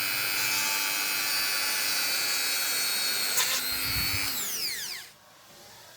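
Small electric motor running with a steady high whine, with a knock about three and a half seconds in; it is then switched off and its pitch falls as it spins down, dying away about five seconds in.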